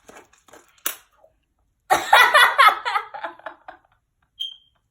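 A spoon snapping while it stirs thick slime in a bowl: a sharp crack about a second in, then a louder stretch of crackling and squishing.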